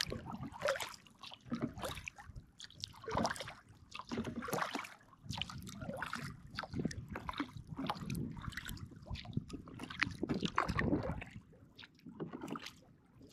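Kayak paddle strokes: the blades of a double-bladed paddle dip and pull through calm lake water, splashing and dripping about once a second, alternating sides.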